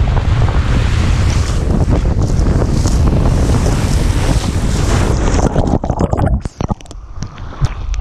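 Wind buffeting the microphone and water rushing along the Slush Gusher body slide as the rider speeds down it. About six seconds in the rushing breaks off into a few sharp knocks.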